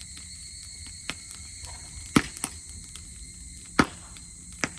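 Campfire of dry grass crackling, with a handful of sharp pops, the two loudest about two seconds in and just before four seconds; insects chirp steadily behind.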